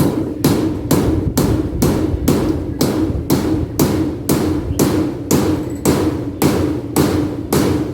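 Hammer nailing corrugated tin roofing sheets to the shed's frame: a steady run of sharp blows about two a second, each with a short metallic ring from the sheet.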